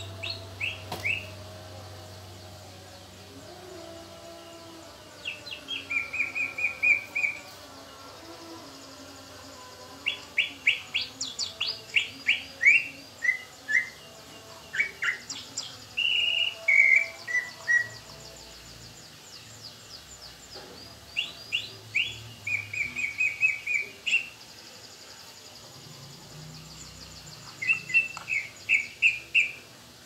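Recorded song of a cucak ijo (green leafbird) played through a tablet's speaker: phrases of rapid, repeated sharp chirps and short trills, separated by pauses of a few seconds.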